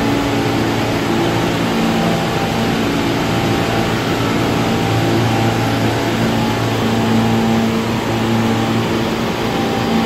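R46 subway car standing at the platform, its onboard equipment giving a loud, steady hum with low tones that swell and fade.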